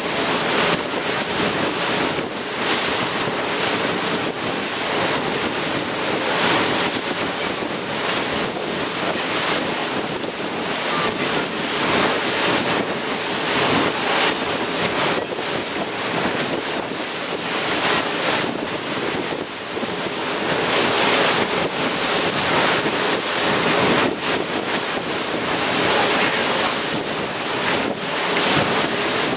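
Motorboat running fast over open water: rushing spray and water along the hull mixed with heavy wind buffeting the microphone, and a faint steady engine hum underneath.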